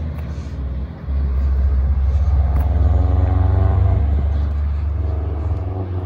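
A car's engine and exhaust drone on the road, a deep "Wookiee noises" growl that grows louder about a second in and holds, its pitch rising and falling as the car goes by.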